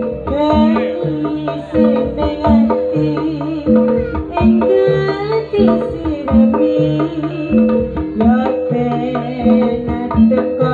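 Live Javanese jaranan (kuda kepang) gamelan music: kendang hand drums keeping a steady beat over a low two-note figure that repeats all through, with a wavering, gliding melody line on top.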